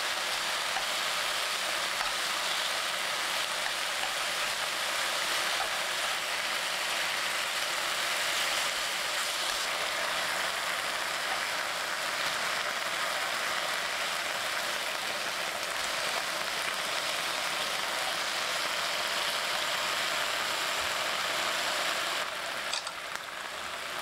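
Thin slices of marinated beef sirloin sizzling steadily in a frying pan, the marinade spitting as the meat browns. The sizzle drops off a little about 22 seconds in.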